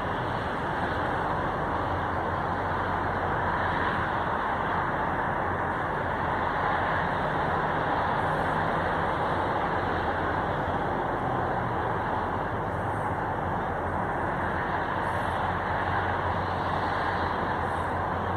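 Stainless-steel passenger cars of VIA Rail's The Canadian rolling slowly past, a steady rumble of wheels on rail with a few faint high ticks.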